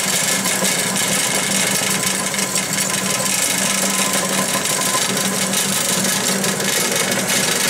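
STAR electric flour mill (grain grinding mill) running and grinding grain, a loud steady grinding rush over a constant motor hum.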